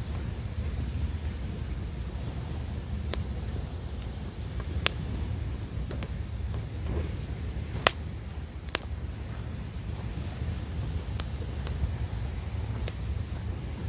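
Wood campfire crackling, with several sharp pops scattered through, the loudest about eight seconds in, over a steady low rumble of waves.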